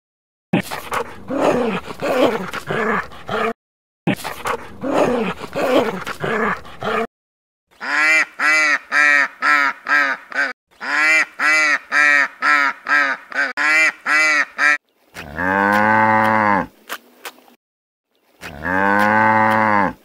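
A sequence of animal calls. First a rough, noisy stretch in two parts. Then a quick run of short repeated calls, about three a second, and near the end two long cow moos.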